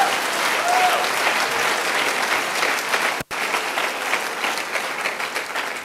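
A church congregation applauding, with a few faint voices calling out near the start. The clapping tapers off near the end, and there is a split-second dropout in the sound a little past halfway.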